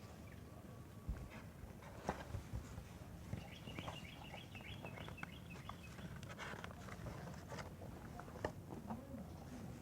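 Faint room tone with a low steady hum, a few scattered small clicks, and a brief run of faint high chirps about four seconds in.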